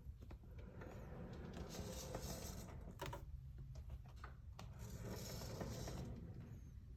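Luar barber/beauty chair turning on its base, giving a faint gritty "shari-shari" scraping in two stretches, the first about two seconds in and the second near the end. The noise persists even though the swivel bearing has been replaced and re-greased.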